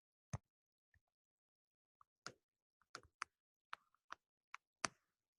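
Scattered single clicks, about nine at uneven intervals, with near silence between them.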